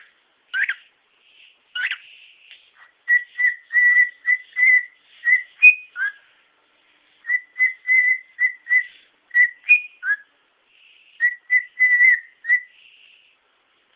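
Cockatiel beatboxing: short whistled chirps around one pitch, each dropping at the end, in three quick rhythmic runs with short pauses between them.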